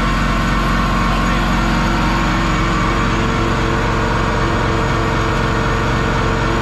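School bus engine running hard at steady high revs while one rear tire spins on concrete in a reverse burnout. The sound is loud and steady throughout.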